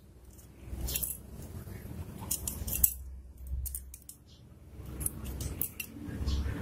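Light metallic clicks and clinks of a brass main jet and small carburetor parts being handled and pushed into a TS125 carburetor body by hand, several scattered taps over low handling bumps.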